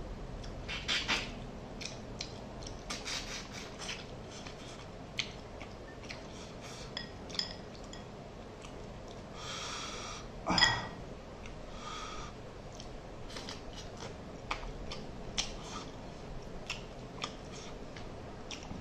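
Close-up eating by hand: chewing and wet mouth clicks, with fingers scraping rice and fish curry on a stainless steel plate. About ten seconds in comes one sharp clink on the plate that rings briefly.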